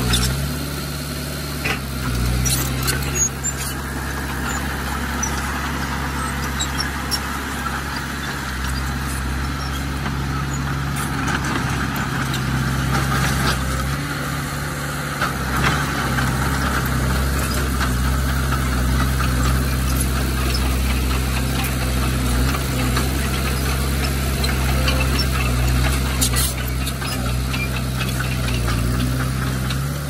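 Bulldozer's heavy diesel engine running steadily, with occasional metallic clanks.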